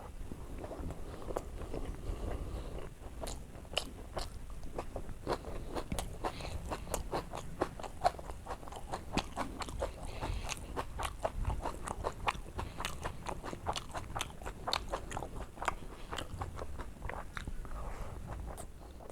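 Close-up chewing and wet mouth clicks of a person eating rice with oily brinjal curry: a dense, irregular run of small smacks and crunches, several a second.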